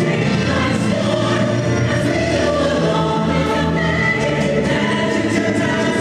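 A show tune sung by a chorus of voices over instrumental backing music, running steadily throughout.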